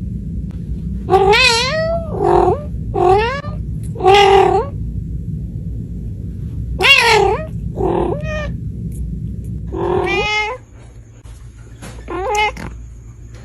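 Kittens meowing over and over, about nine separate meows, each bending in pitch, over a low steady hum that drops away near the end.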